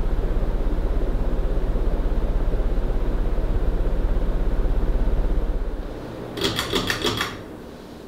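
Emerson Designer spinner-motor ceiling fan running at speed, its blades beating the air in a steady low pulsing whoosh that drops off sharply about three quarters of the way in. A quick run of about five clicks follows near the end.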